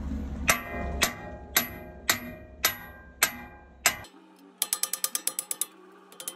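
Seven sharp metal-on-metal strikes on a wheel loader's steel bucket hydraulic cylinder, about half a second apart, each ringing briefly. Then comes a rapid ratchet-wrench clicking, about a dozen clicks a second, and a short second run near the end.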